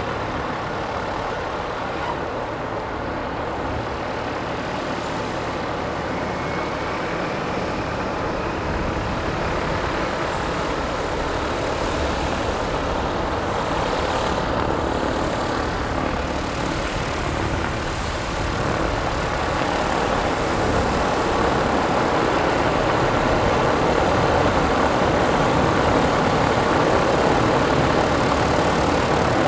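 Robin DR400 light aircraft's piston engine and propeller running steadily as it taxis, growing gradually louder as it comes closer.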